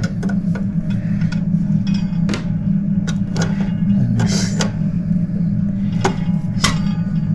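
Small pliers clicking and scraping irregularly on a tight screw under a clock movement, the jaws slipping instead of gripping, over a steady low hum.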